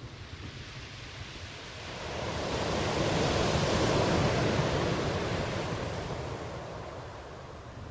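Steady rain, with a broad rush of noise that swells up about two seconds in, peaks near the middle and fades back down.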